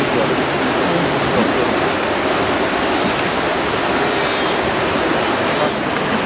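Steady rushing and splashing of river water churned up by a large herd of wildebeest and zebras crossing the Mara River.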